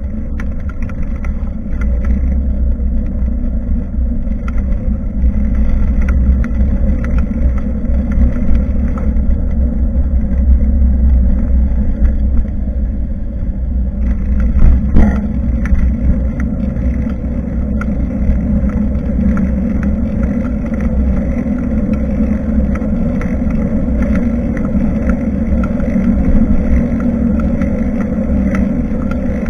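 Wind and road noise from a bicycle ride, picked up by a bike-mounted action camera's microphone: a steady low rumble with scattered small rattles and clicks, and one sharper knock about halfway through.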